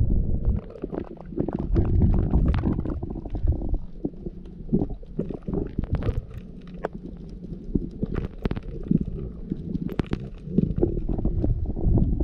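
Muffled underwater rumble and bubbling, with many scattered clicks and pops, picked up by a camera held in the water while snorkeling.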